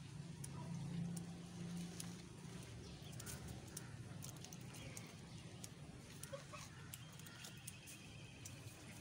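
Domestic geese dabbling their bills in a bucket of water, a faint scatter of small clicks. A thin, high peeping comes in near the end.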